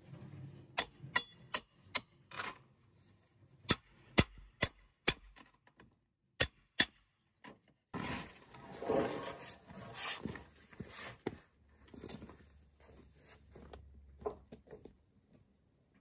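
A hammer striking a steel pry bar against old lumber: three quick groups of sharp, ringing metal-on-metal taps. Then, about eight seconds in, a wooden board scrapes and slides across the stack for a few seconds.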